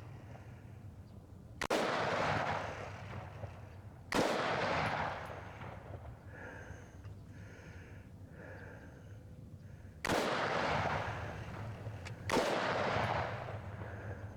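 Four single rifle shots fired one at a time, unevenly spaced two to six seconds apart, each followed by about a second of rolling echo.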